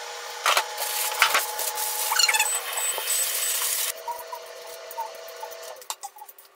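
Rustling and handling as potatoes are fetched, loud for the first few seconds. Then, after a sudden drop in level, a hand vegetable peeler scrapes the skin off a raw potato in short strokes.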